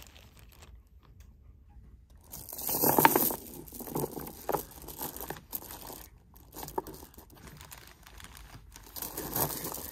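A plastic bag crinkling while strands of coin pearls are handled, in irregular rustles with the loudest burst about three seconds in and smaller ones after.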